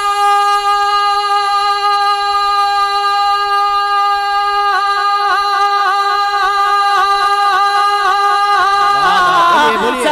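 A man singing a naat unaccompanied into a microphone, holding one long note on 'Maula'. The note is steady at first, wavers in a quick trill from about halfway, then slides down and breaks near the end.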